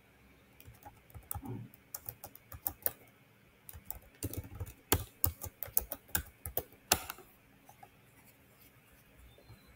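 Computer keyboard being typed on: a run of irregular key clicks that stops about seven seconds in.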